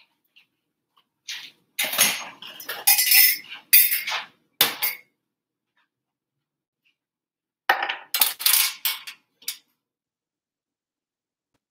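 Kitchen utensil clatter: a metal spoon knocking and scraping against a frying pan and pot in a quick run of sharp clinks and scrapes from about a second in, then a second, shorter run near eight seconds.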